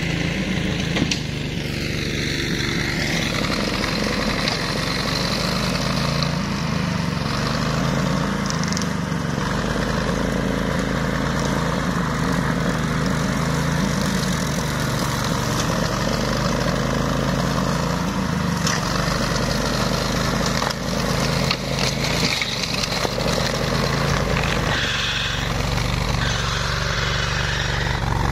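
The 18 hp engine of a ride-on flail mower running steadily, with a few brief knocks partway through.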